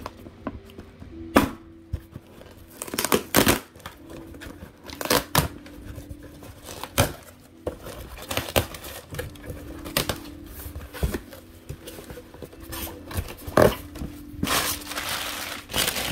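Cardboard shipping box being torn open by hand: packing tape ripping off in a series of short, sharp tears, with cardboard flaps scraping and rustling, and a longer rip near the end.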